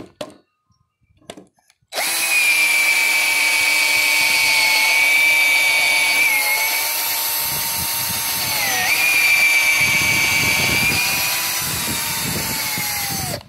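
Electric drill boring a 3/8-inch bit deep into the end grain of a wooden leg. After a short pause with a faint click, the motor starts about two seconds in and runs with a steady whine that dips in pitch twice as the bit bogs under load, then stops just before the end.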